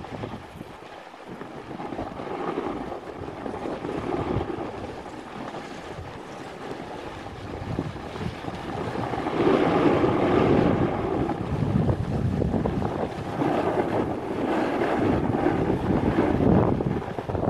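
Wind buffeting the microphone over a snowboard sliding and scraping across snow, the noise swelling and easing and growing louder about halfway through.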